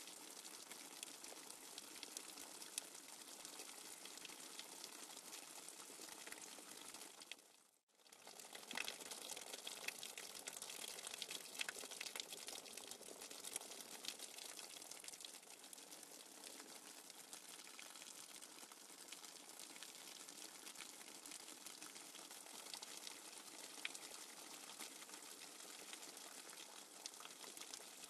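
Faint nature-sound track of running water, a steady rushing with small splashing ticks. It fades out to silence briefly about eight seconds in and then fades back in.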